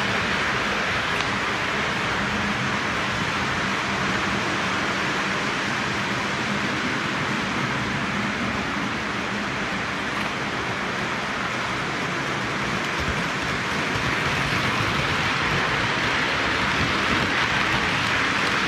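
Lionel O gauge toy trains running on three-rail track: a steady rumbling hiss of metal wheels and motors over a faint low hum, easing a little midway and swelling again near the end as cars pass close by.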